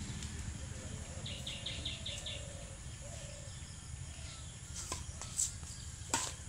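A bird calling a quick run of about six short high notes, then sharp racket hits on a shuttlecock during an outdoor badminton rally near the end, over a steady low background rumble.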